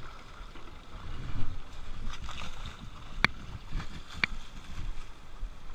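River water splashing and sloshing as a plastic bucket is dipped into the shallow river and people wade through it. Two sharp clicks about a second apart near the middle.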